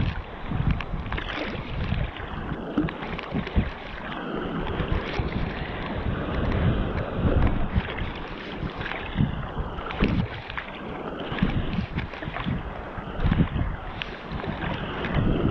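Wind buffeting the microphone on a small boat at sea, with irregular knocks and thumps scattered through it.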